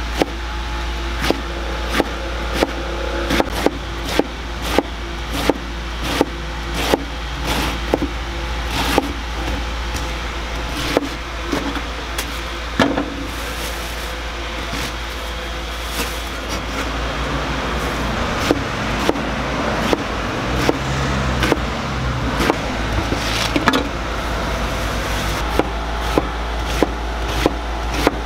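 Kitchen knife slicing through a head of cabbage on a wooden cutting board, each cut ending in a sharp knock on the board, about one and a half a second. The knocks thin out for a few seconds past the middle, over a steady low rumble.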